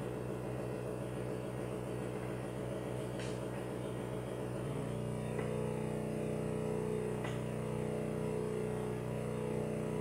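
Analog synthesizer holding a steady, pitched electronic drone, which shifts to a different steady tone about halfway through. Two faint clicks sound over it.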